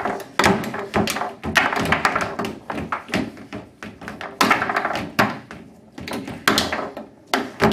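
Foosball table in play: the ball cracking off the plastic men and the table walls, and rods banging in their bearings, as irregular sharp knocks and clacks with a few louder bangs.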